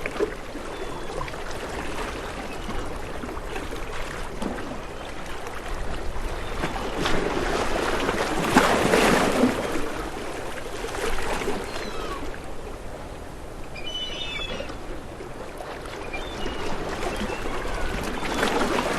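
Waves washing in as a continuous rush of water, swelling to a louder surge about halfway through and then easing back.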